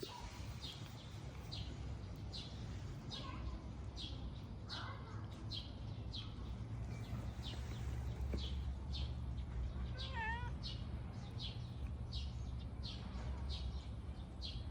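A cat meowing, with short high chirps repeating about once a second over a low steady rumble.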